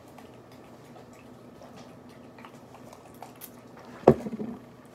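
Small clicks and rustles of someone moving about close by, then a single sharp thump about four seconds in, followed by a brief rattle.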